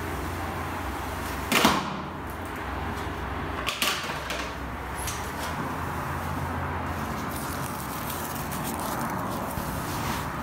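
Clear plastic dust sheeting swishing and crinkling as it is pushed aside, with two short sharp swishes about two seconds apart, over a steady low background hum.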